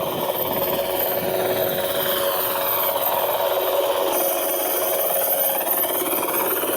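Helicopter sound effect: a steady rotor whir with tones that sweep up and down, shifting abruptly about four seconds in.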